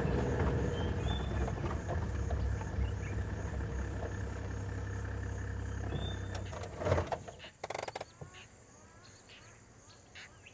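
Safari four-by-four's engine running as the vehicle moves slowly over grass, a steady low rumble that drops away about six and a half seconds in. A brief knock near seven seconds, then quiet open ambience.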